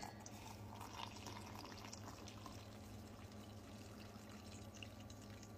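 Coffee pouring faintly from a glass coffee-maker carafe into a metal tumbler, a thin trickle of liquid, over a low steady hum.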